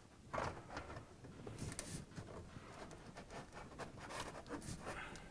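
Faint scraping and small taps of a black DuraVent DVL double-wall steel stove pipe section being worked up onto the adapter above it, metal sliding on metal in short, irregular pushes.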